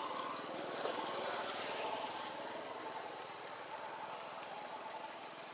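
Steady outdoor background noise with no calls, and a faint steady high tone joining about two seconds in.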